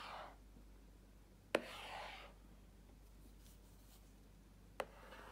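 Tip of an active capacitive stylus touching down on a tablet's glass screen and sliding across it as lines are drawn, twice: a sharp tick, then a faint scratchy rub.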